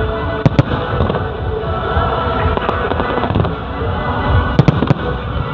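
Fireworks going off in a continuous rumble of bursts, with sharp bangs about half a second in and a quick cluster of three a little before the end.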